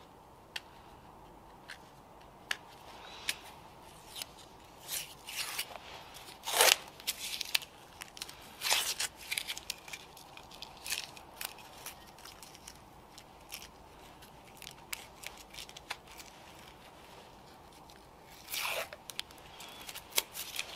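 Masking tape being peeled off small acrylic pieces: irregular short crackles and tearing sounds, loudest about six and a half seconds in and again near the end.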